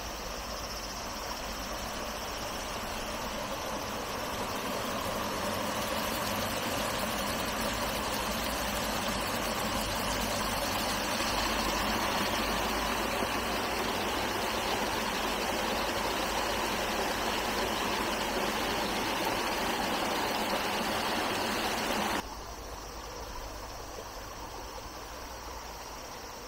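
Flowing water: a steady rush, slowly growing louder, that cuts off sharply about 22 seconds in, leaving a quieter background.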